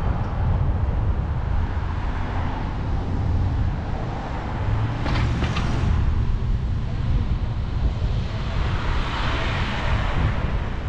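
Wind buffeting a handlebar-mounted camera microphone on a moving bicycle, over the noise of city traffic. A brief sharp noise comes about five seconds in, and a car passes close by around nine to ten seconds.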